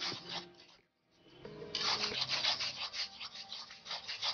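Metal spatula scraping and stirring thick spice paste around an aluminium kadai in quick repeated strokes, stopping briefly about a second in, while the masala fries down.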